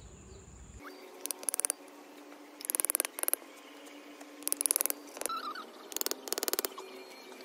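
A sleeping puppy snoring: short rattling snores repeating about every one to one and a half seconds, with a small squeak between them.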